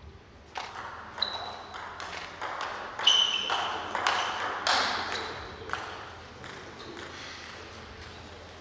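Table tennis rally: the plastic ball clicks in quick succession off the rubber bats and the table, each hit with a short ring and a hall echo. It starts about half a second in, gets louder through the middle and dies away in the last couple of seconds.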